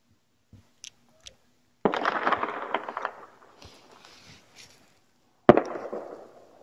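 Firecrackers going off: a sudden run of rapid crackling pops about two seconds in that fades after about a second, then a single sharp bang near the end that dies away.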